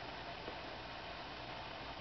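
Steady, even hiss of background noise with no distinct calls, and one faint tick about half a second in.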